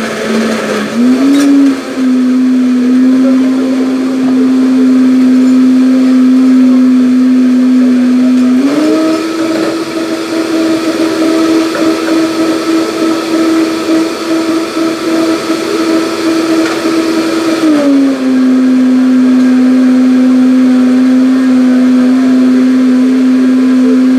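Bar blender motor running steadily at high speed. Its pitch steps up about a third of the way through and drops back about two-thirds of the way in.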